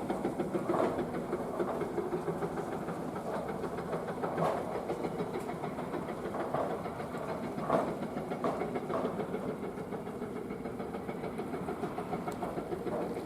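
Excavator with a hydraulic rock breaker working: the engine runs steadily under a fast, even pulsing that fades about a second in, with scattered sharp knocks, the loudest about eight seconds in.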